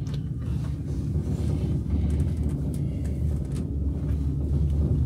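Steady low rumble inside a cable car cabin as it travels up its ropes, with faint clicks above it.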